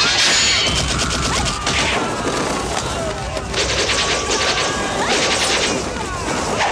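Battle sound effects: bursts of rapid gunfire crackling in volleys, with shouts of fighting men between them.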